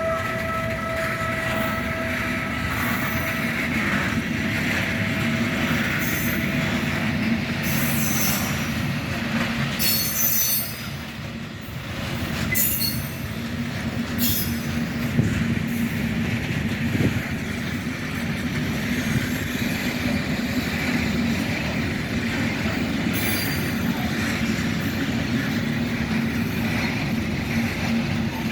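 Freight train of Eas open wagons hauled by a Siemens Vectron electric locomotive rolling past, with a steady rumble and high-pitched wheel squeals and clicks from the rails. A steady tone sounds for the first several seconds.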